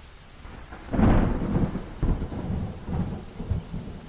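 A thunderclap breaks sharply about a second in and goes on as a low, uneven rumble, over the steady hiss of heavy rain.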